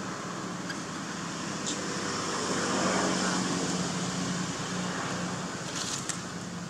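Steady low hum of a motor vehicle engine that swells about halfway through, over a hiss of outdoor background noise, with a few short clicks near the end.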